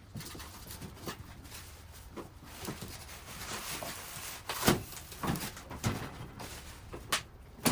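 A few sharp knocks and a stretch of rustling and scraping as the parts of a metal tool cart are handled and lifted out of their cardboard packaging.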